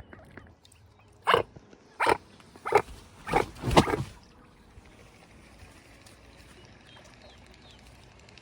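Five short, loud, harsh animal calls in quick succession, starting about a second in and ending about three seconds later.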